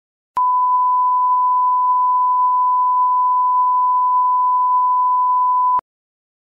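Steady 1 kHz test tone played with colour bars, a single unchanging beep that lasts about five seconds. It switches on with a click about half a second in and cuts off with a click near the end.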